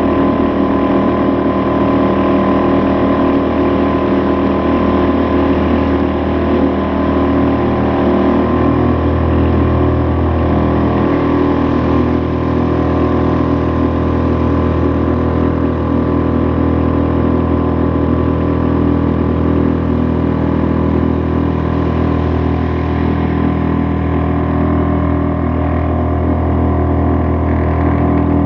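Suzuki 2.5 HP four-stroke outboard motor, a small single-cylinder engine, running steadily at full throttle and pushing a small boat at top speed, with a slight change in its note about eight seconds in.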